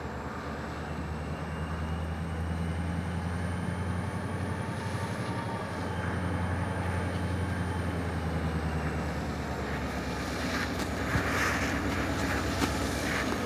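Diesel locomotive of an approaching railroad snow plow train running, a steady low engine drone with a faint high whine, growing louder. Patches of rushing noise join in over the last few seconds.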